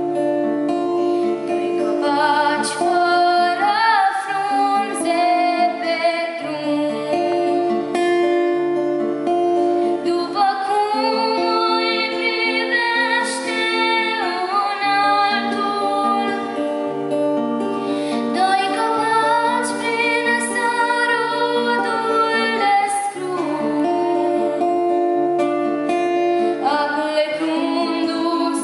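A girl singing a Romanian folk song in long, held phrases, accompanying herself on an acoustic guitar.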